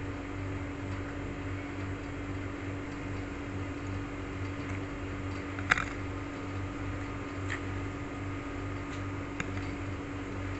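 Steady mechanical hum of a running electric appliance, with a few light clicks, the sharpest a little over halfway through.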